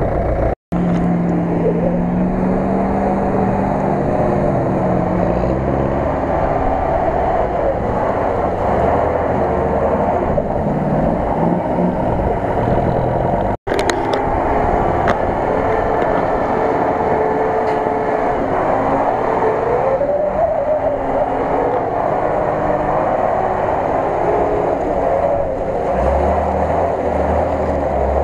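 Off-road 4x4 engines running and revving as the vehicles drive through mud. The sound cuts out abruptly twice, about half a second in and about halfway through.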